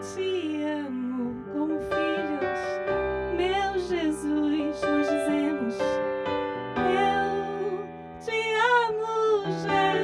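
A woman singing a worship song into a microphone over sustained instrumental chords, her voice gliding between notes with vibrato on held notes.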